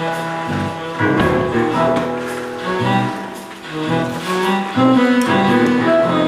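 Instrumental music, a melody of held notes changing one after another.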